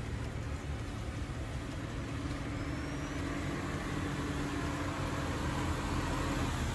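Honda Fit's four-cylinder engine running smoothly as the car rolls slowly up a concrete driveway, growing gradually louder as it approaches; the earlier misfire has been cured by a new coil pack and spark plug.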